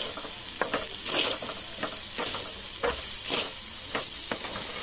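Metal spatula scraping and turning flattened rice (poha) in a metal kadai over a steady frying sizzle, with scraping strokes about twice a second.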